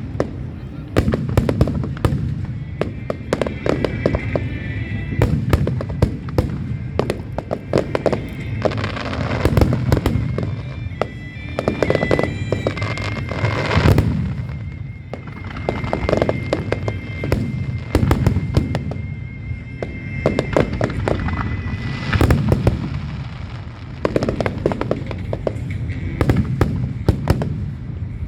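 Aerial fireworks display: shells bursting in quick succession with sharp cracks and booms over a continuous low rumble, with no pause.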